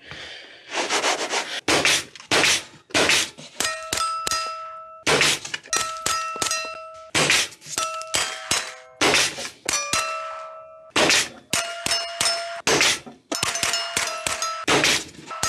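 Rapid gunfire at steel plate targets. For the first few seconds the shots come without ringing; from about four seconds in most hits ring out a clear note, each at its own pitch, so the steel plays a Christmas tune.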